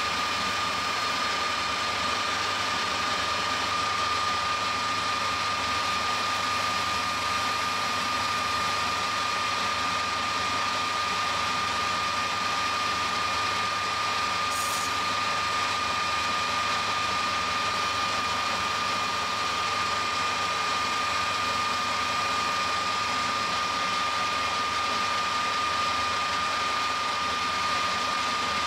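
Metal lathe running steadily at speed, its drive giving a constant high whine, while the spinning aluminium knob is finished by hand. A brief hiss comes about halfway through.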